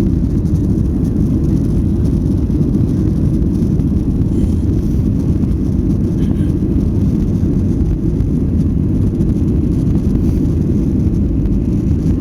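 Airliner's jet engines at takeoff power, heard from inside the passenger cabin: a loud, steady low rumble.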